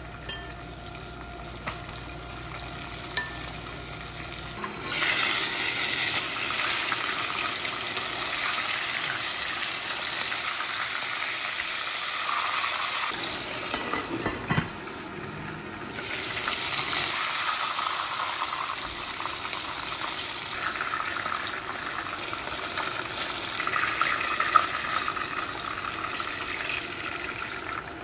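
Chicken pieces frying in hot oil in a pot, with a loud, steady sizzle. The sizzling starts about five seconds in after a few light clicks, drops away briefly about halfway through, then picks up again.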